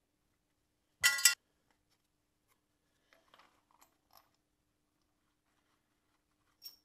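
A thin metal plate clanks twice in quick succession against the engine's harmonic balancer about a second in, with a brief metallic ring, followed by a few faint small metal clicks and taps.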